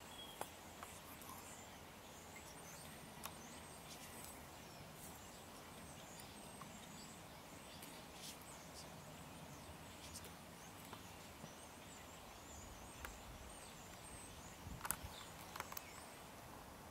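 Quiet woodland ambience: a low steady hiss with faint high chirps of small birds and scattered soft clicks and rustles, a few sharper clicks about three-quarters of the way through.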